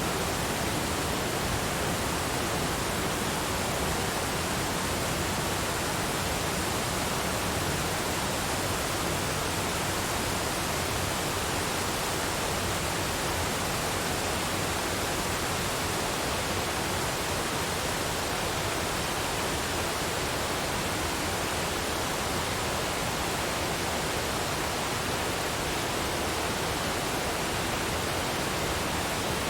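A waterfall's water falling and rushing, a steady, unbroken noise.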